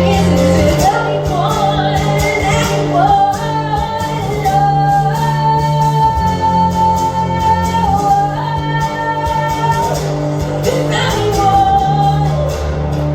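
Live song performance: a solo vocalist sings over instrumental accompaniment with a steady low bass. A long high note is held from about four seconds in until about ten seconds in.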